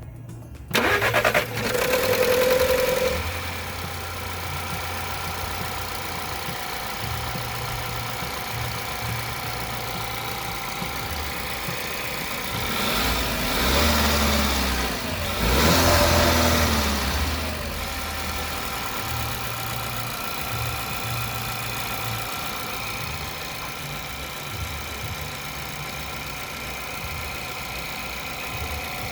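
Volkswagen group 1.2 TSI four-cylinder engine starting about a second in, flaring up for a couple of seconds, then settling to a steady idle. It is revved twice about halfway through. This is the first start after a new timing-chain tensioner was fitted, when a little noise is expected while the tensioner loads up.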